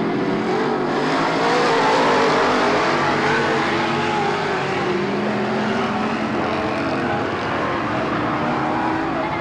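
Several race car engines running hard as the field circles the oval, their pitch rising and falling together, loudest about two seconds in.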